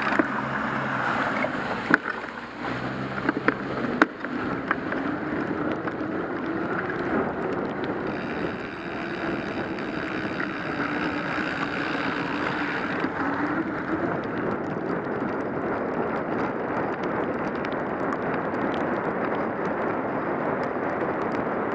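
Bicycle rolling on a wet road in the rain: a steady hiss of tyres on wet pavement mixed with wind on the microphone, with a few sharp clicks in the first few seconds.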